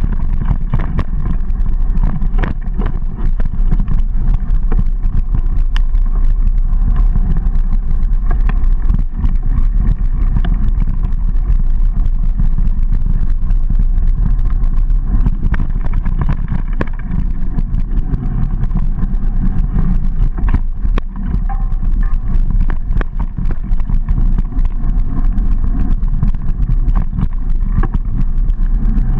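Mountain bike ridden along a rough dirt singletrack: a steady low rumble of wind and rolling noise on the action camera's microphone, with the bike rattling over the bumpy trail in many sharp clicks and knocks.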